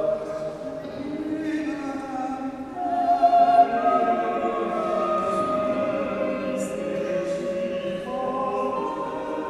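Choir singing long held notes in several parts, swelling briefly about three seconds in.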